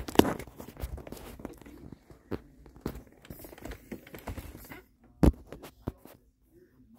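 Handling noise on a wooden desk: a clack as the closed folding knife is set down, then a run of small clicks, taps and rustles while things are moved about, and a sharp knock about five seconds in with a smaller one just after.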